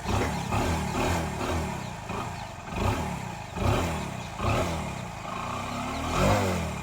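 Motorcycle engine running, its revs rising and falling a few times, with some clatter.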